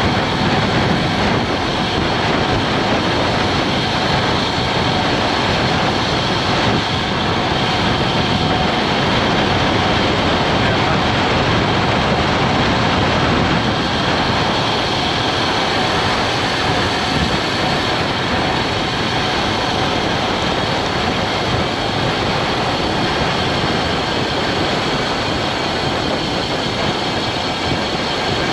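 Steady wind rush on an action camera's microphone mixed with the hum of road-bike tyres rolling on asphalt, riding at speed.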